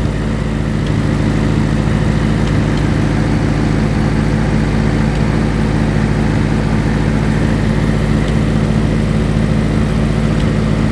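1955 Allis-Chalmers WD45 tractor engine running steadily at raised throttle, its speed having just been brought up with more fuel.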